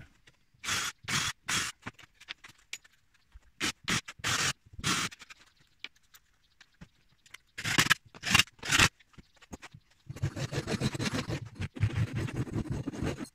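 A saw cutting through chipboard, rasping in short separate bursts, then in one longer stretch of cutting over the last few seconds.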